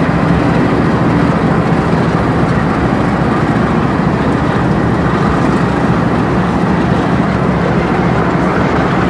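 Norfolk Southern diesel locomotives passing close by with their engines running steadily under power, a loud, continuous drone with no breaks.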